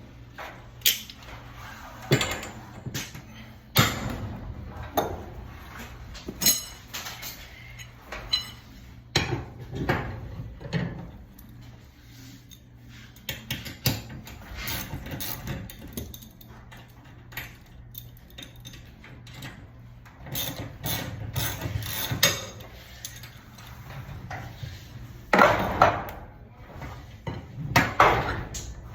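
Irregular metallic clanks and clicks of tools working a garage door spring as tension is wound onto it, some strikes leaving a short ringing tone.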